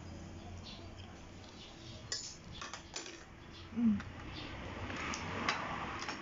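A fork clinking and scraping against plates in a few scattered taps during a meal, with a brief low hum from a person's voice a little before the four-second mark.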